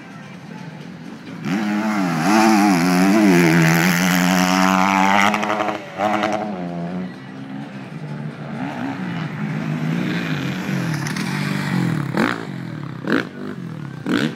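Off-road motorcycle engine revving hard, its pitch climbing and wavering, loudest about two to five seconds in. It then runs at lower revs, with a few short sharp cracks near the end.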